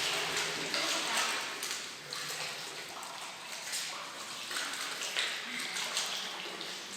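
Water splashing and trickling in an animal's pool, an even rushing noise with faint voices in the background.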